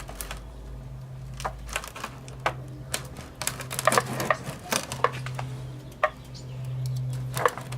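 Irregular light metal clicks and taps, busiest around the middle, as rib hanger hooks are handled and set in the ribs, over a steady low hum.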